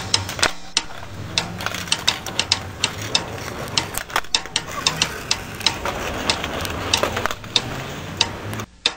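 Skateboards clattering on stone paving: a run of sharp, uneven clicks and knocks, several a second, over a low rolling rumble, cutting off suddenly near the end.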